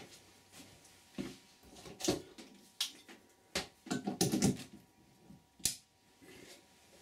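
Scattered clicks and knocks of handling as the band saw's power cable is plugged in, with a louder cluster about four seconds in and a sharp click near the end; no motor is running.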